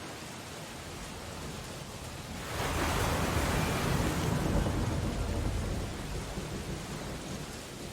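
Stormy ocean ambience: steady rain and surf noise, with a louder surge of the storm about two and a half seconds in that fades away after a few seconds.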